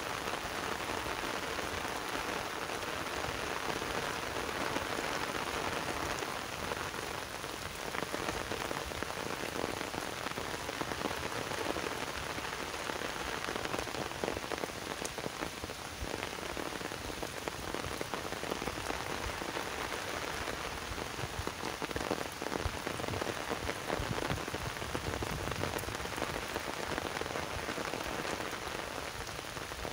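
Heavy rain falling steadily on wet ground and water: a dense, even hiss with many separate drop hits.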